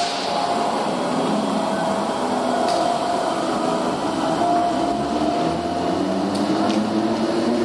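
DART electric commuter train moving past along the platform under the station roof, with a steady hum and a motor whine that rises in pitch from about halfway through as it gathers speed, over the general noise of the station.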